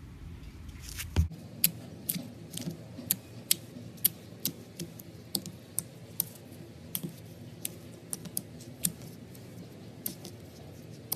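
Gold slime being worked by hand, giving a run of sharp clicks and pops, roughly two a second and unevenly spaced.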